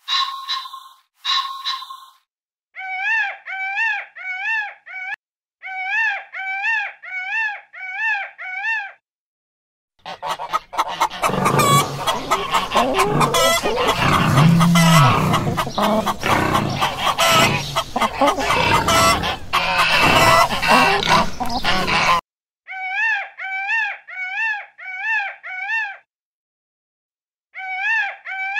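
Poultry calling. Short, identical pitched calls come in quick runs of four or five, repeated several times. In the middle, a long, loud stretch of turkeys gobbling and calling over each other is the loudest part.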